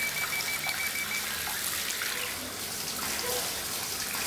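Tap water pouring from a bathtub spout into a filling tub, a steady rush. A fast run of short, high-pitched beeps sounds over it for about the first second.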